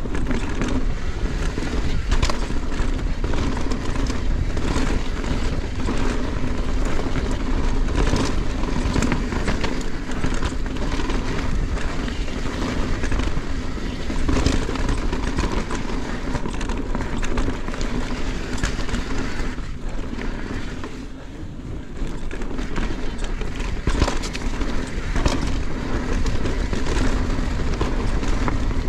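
Yeti SB160 mountain bike riding fast down a rocky dirt singletrack: a steady roar of knobby tyres on dirt, with frequent sharp clacks and rattles from the bike over rocks and bumps. The roar briefly drops about two-thirds through, and a sharp knock follows soon after.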